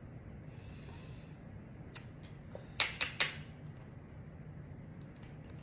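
Tarot cards handled on a tabletop: a brief soft swish of a card sliding, then a few sharp clicks and taps as a card is picked up and held out, over a faint steady room hum.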